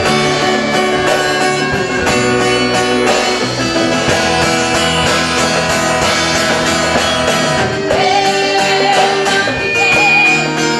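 Worship band music led by guitars, with a steady beat underneath.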